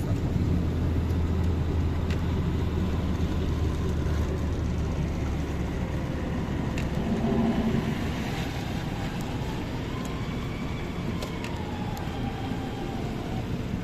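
Road traffic noise with a vehicle engine's low rumble, strongest for the first five seconds or so. In the second half a faint tone rises and then falls in pitch.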